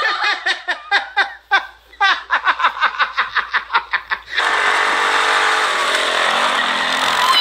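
A person laughing in rapid bursts, then, about four seconds in, an ATV's engine running with a loud, steady noise.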